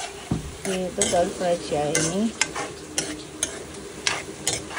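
Food sizzling in a frying pan while it is stirred, with irregular sharp scrapes and clicks of the utensil against the pan.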